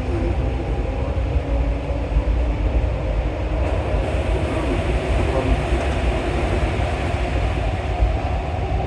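Alstom MP14 rubber-tyred metro train running through a tunnel: a steady, deep rumble with a faint motor whine on top.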